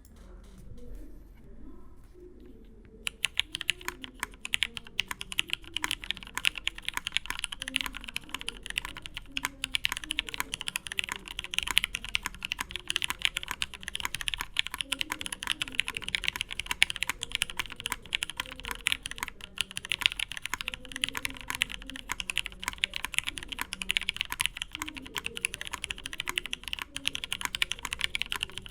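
Fast, continuous typing on a Matrix 8xv2.0 custom mechanical keyboard with an aluminium plate, lubed vintage Cherry MX Black linear switches and Cherry G81-3116 keycaps; the keystrokes start about three seconds in.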